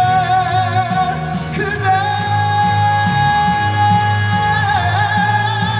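Live trot song: a male singer holds long high sustained notes with vibrato, stepping up in pitch about two seconds in, over a band's steady bass and beat.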